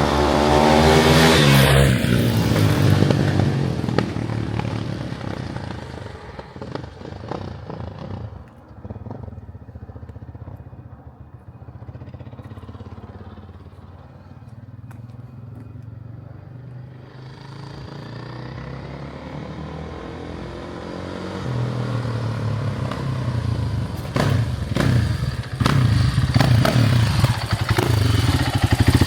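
KTM 500 EXC-F single-cylinder four-stroke dirt bike engine revving up hard at the start. The sound then falls away and is quieter through the middle. It builds back up and is loud again over the last several seconds, with sharp throttle blips.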